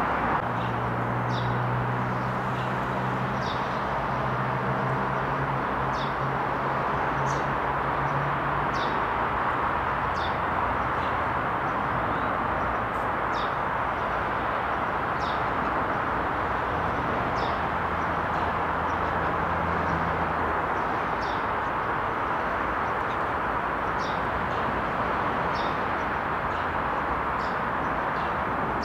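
Steady background roar of distant city traffic, with a small bird repeating a short high chirp every second or two. A low engine drone rises briefly in the first few seconds and again about eighteen seconds in.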